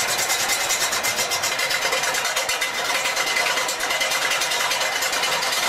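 Large wood lathe running with a big log spinning on it: a steady mechanical whir with a fast, even rattle from the turning drive.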